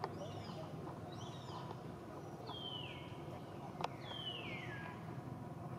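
Four high animal calls, each falling in pitch, the last two longer and stepping down as they fall, over a steady low hum. A single sharp click comes just before four seconds in.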